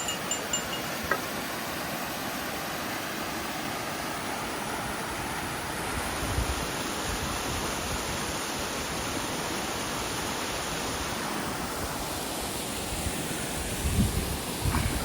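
Steady rushing of water in a mountain gorge, from a stream or waterfall. A few low thumps come near the end.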